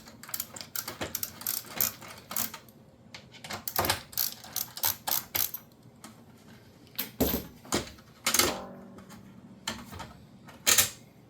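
Dishwasher front control panel being handled after its screws are removed: a quick run of small clicks and rattles, then a few louder knocks about seven to eight seconds in, one ringing briefly, and a sharp click near the end.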